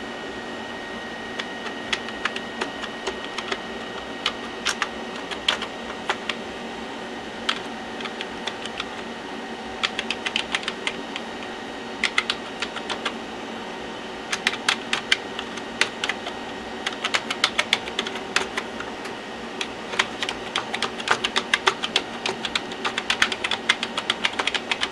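Old AT-style computer keyboard being typed on in irregular quick runs of key clicks, over a steady background hum. The keys register, so the keyboard has survived a wash in the dishwasher.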